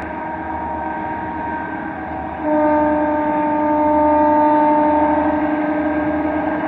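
Air horn of a TCDD DE 22000-class diesel locomotive sounding a long chord of several steady notes, which grows louder and drops slightly in pitch about two and a half seconds in. A low rumble sits underneath.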